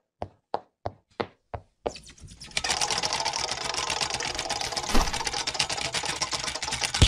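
Separate sharp clicks about three a second, then from about two seconds in a fast, dense clatter of mechanical clicking, like a typewriter, with a louder click near the end.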